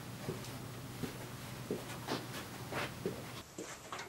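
Quiet room tone with a steady hiss and low hum, broken by a few faint, brief scuffs and taps.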